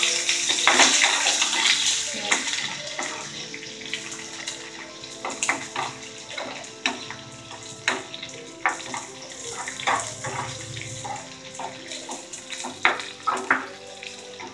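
Sliced onions sizzling in hot oil in a small steel pan, the hiss loudest in the first two seconds and then settling lower. A steel spoon scrapes and clinks against the pan as they are stirred.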